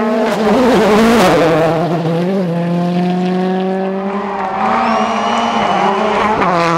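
A World Rally Car's 1.6-litre turbocharged four-cylinder engine held at high, steady revs while spinning donuts, with tyres sliding. The revs dip and pick back up about a second in and again near the end.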